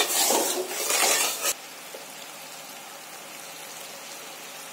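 Sugar syrup boiling in a metal pan while a spatula stirs and scrapes through it for about the first second and a half; after that only a faint, steady hiss of the bubbling syrup.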